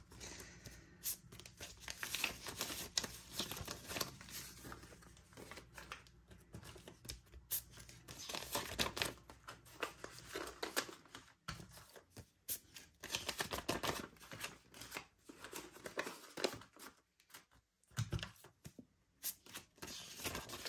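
US paper banknotes being handled and flipped through by hand, irregular papery rustling and crisp snaps with short pauses between handfuls.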